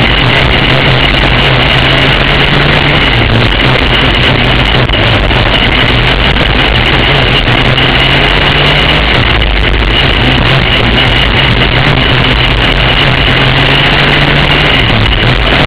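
Racing kart engine running hard at race speed, loud and steady with small shifts in pitch, picked up close by a camera mounted on the kart.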